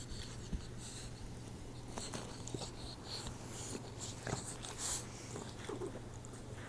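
Four-month-old boxer puppy snoring in its sleep: a run of soft, hissy breaths, about one to two a second, with small clicks and snuffles between them. A steady low hum lies underneath.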